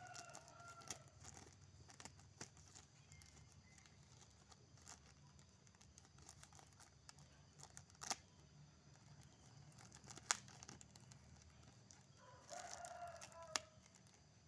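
Faint rooster crowing twice, once at the start and once near the end, over near silence, with a couple of faint sharp clicks in between.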